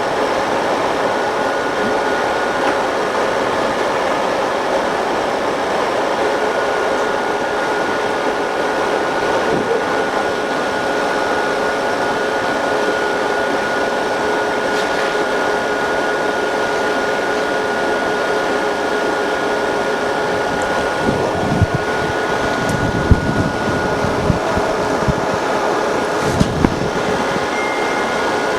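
Steady whirring hum of a laser back-glass separator machine's cooling fans, with a faint high steady whine. A few sharp clicks and knocks of parts being handled come in the last several seconds.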